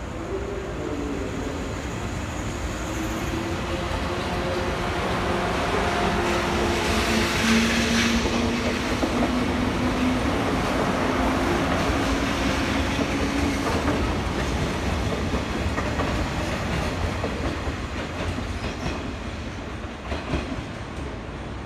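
JNR 189-series electric train passing close by the platform. Its wheels clack over the rail joints under a steady rumble, with a low hum from the train under it for the first half. It is loudest about eight seconds in, as the cars go by, and eases off as the train pulls away.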